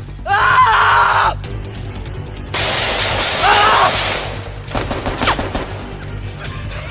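Action-film soundtrack: a music score with a burst of rapid gunfire near the middle, and a man's voice crying out twice.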